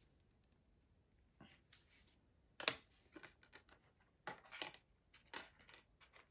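Handling of a Blu-ray SteelBook case and its discs: a scatter of light clicks and taps, the loudest about two and a half seconds in.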